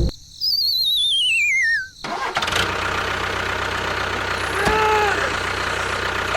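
A wavering whistle-like tone glides down in pitch over about a second and a half. Then a steady motor or engine noise comes in and runs on, with a brief pitched tone a few seconds later.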